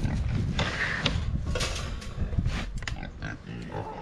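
Pigs grunting and snuffling close by, with a few sharp knocks.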